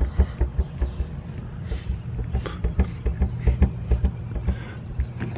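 Thin plate-metal skin of a Jeep Wrangler tailgate being pushed lightly by hand, flexing with irregular low thumps several times a second and small sharp clicks, over a steady low hum.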